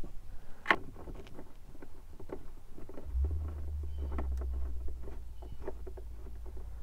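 Scattered light clicks and taps of plastic dash trim pieces and small screws being handled, with one sharper click under a second in. A steady low hum comes in about three seconds in.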